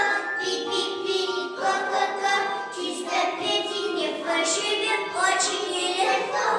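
Children singing a song with musical accompaniment, a melody of held notes changing every half second or so.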